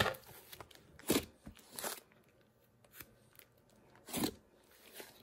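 Pink school-glue slime with polymer clay worked into it, squished and folded by hand: a few short, sticky squishes with quiet pauses between them.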